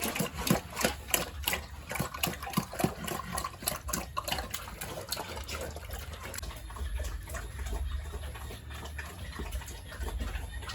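Pigs eating wet feed: rapid wet chomping and slurping smacks that thin out about halfway through.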